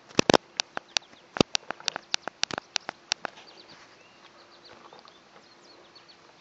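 Irregular sharp knocks and clicks, about a dozen in the first three seconds, then a quieter stretch with faint bird chirps.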